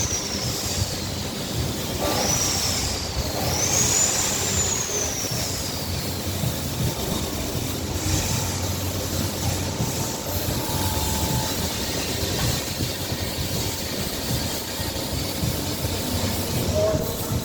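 A high-speed motor whining: its pitch falls, then twice shoots up quickly and winds down slowly over a couple of seconds, like a tool spun up and let coast. This is over a steady mechanical noise that runs throughout.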